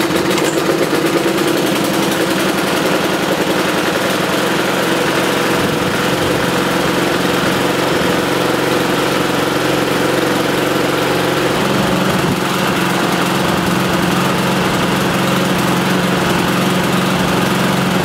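Hayter Spirit 41's Briggs & Stratton single-cylinder petrol engine running on its own just after starting, revived by a new spark plug in place of one screwed in so far it had no gap. It revs up and down a little, which the mechanic puts down to a crinkled carburettor diaphragm.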